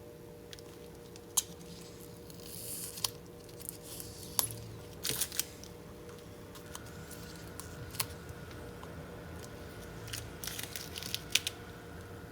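Hands working on a laptop screen's plastic film and tools: scattered sharp clicks and taps with a few short scraping, rustling sounds, over a steady hum.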